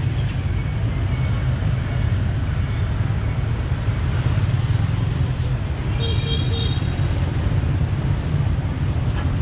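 Steady low rumble of passing road traffic. About six seconds in comes a brief, high, repeated beeping, like a vehicle horn.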